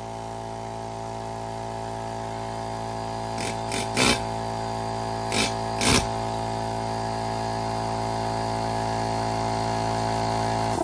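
Portable twin-tank air compressor's motor running steadily and growing slightly louder, with about five short bursts of an air chisel hammering at a stuck wheel between roughly three and a half and six seconds in.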